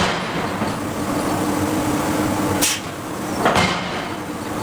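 Heavy forging machinery running with a steady hum, broken by two sharp metallic knocks a little under a second apart past the middle.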